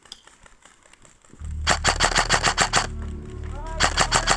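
LCT AK74 airsoft electric rifle firing two full-auto bursts of rapid, evenly spaced shots, the first about a second long and the second shorter, about a second later. Background music starts just before the first burst.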